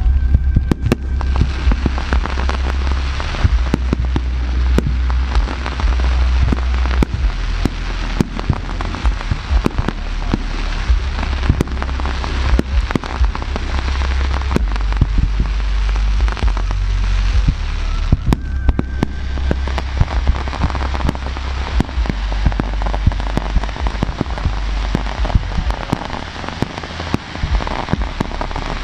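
Aerial fireworks display: a dense, continuous barrage of shell bursts and crackling over a steady deep rumble.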